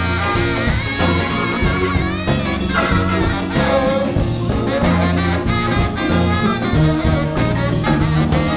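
Live rock band with a horn section playing an instrumental passage, a saxophone leading over drums, bass and keyboards.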